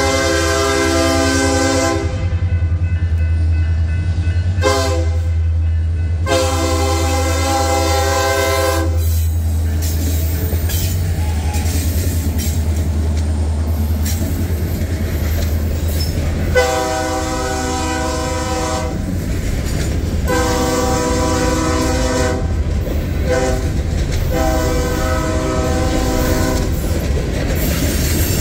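Freight locomotive's air horn blowing for grade crossings: long blasts with a short one, then about halfway in a full long, long, short, long crossing signal. Under it runs the steady rumble of the passing train, with tank cars clattering over the rails.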